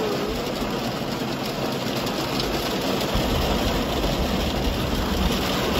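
Heavy rain falling on a car, heard from inside the cabin as a steady hiss. A low rumble sets in about halfway through.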